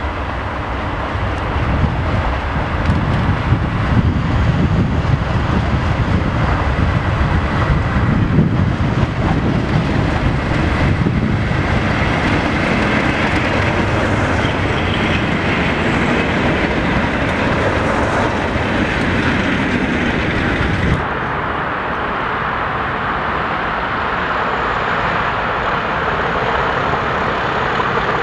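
Pair of Class 37 diesel locomotives with English Electric V12 engines running past at close range, their engines and wheels growing loudest as they pass. About 21 seconds in the sound changes abruptly to a steadier, thinner train rumble.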